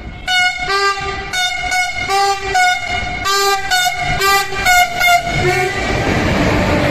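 Diesel locomotive horn sounded in a rapid series of about a dozen short blasts, then the rushing noise of the train running at speed.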